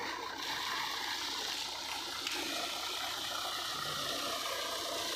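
Water gushing and splashing from a tube well outlet as a hiss that swells about half a second in, with an engine running underneath.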